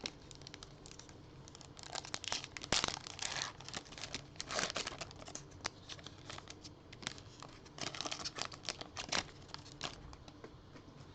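Plastic wrapper of a Topps trading-card pack crinkling as it is torn open and handled, in irregular bursts.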